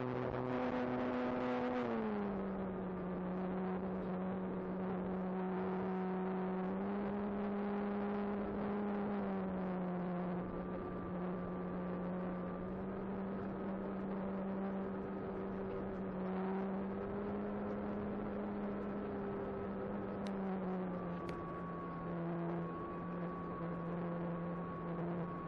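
Electric motor and propeller of an Apprentice 15e RC trainer airplane, heard from on board in flight as a steady whine. The pitch is high at first and drops to a lower cruise pitch about two seconds in, then holds with small steps up and down as the throttle is adjusted.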